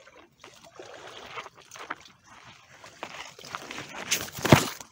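A person wading through shallow water: irregular splashes and sloshing, loudest in one sharp splash near the end.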